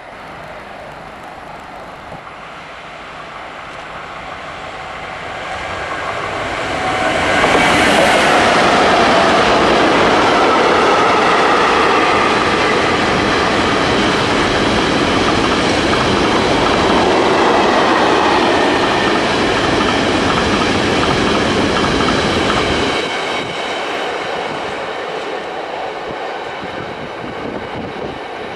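Freight train of tank wagons passing close: the noise builds as it approaches, is loudest from about seven seconds in as the wagons roll by with wheel clatter and rail noise, and falls away about 22 seconds in as the last wagons pass.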